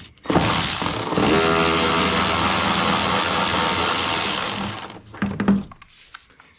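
Cordless electric ratchet spinning out a 10 mm headlight mounting bolt, its motor running for about four and a half seconds before stopping. A couple of short bursts follow near the end.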